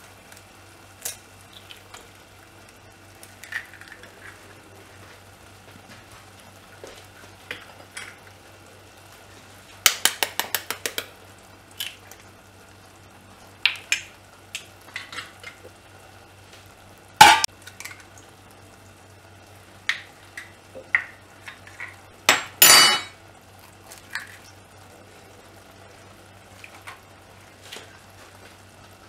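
Eggs being cracked on the rim of a cooking pot: scattered sharp knocks and taps, with a quick run of about eight taps around ten seconds in and the loudest knocks a few seconds later, over a low steady hum.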